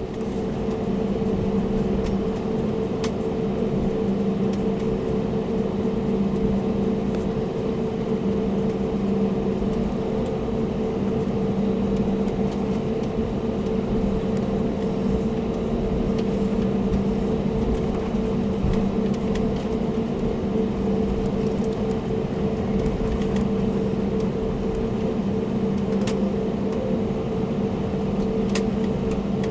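Steady airliner cabin noise inside an Airbus A321-200: an even hum and rush from the engines and air systems that holds unchanged, with a few faint clicks.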